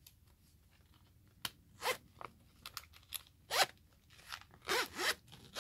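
Zipper on a water-resistant phone case being pulled closed in a run of short, uneven rasping strokes, starting about a second and a half in.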